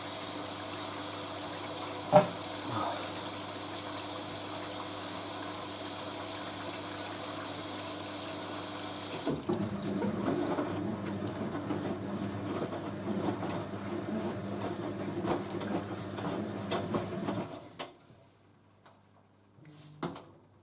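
Hoover A3060 Electronic 1100 front-loading washing machine filling with water during the wash, a steady hiss of water through the inlet valve with a low hum. About nine seconds in the hiss stops and the drum churns and sloshes the load, then stops near the end.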